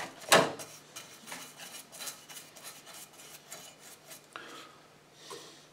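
Small brush working paint stripper over a metal toy car body: light scraping with frequent small taps of metal on metal, and one sharper knock just after the start.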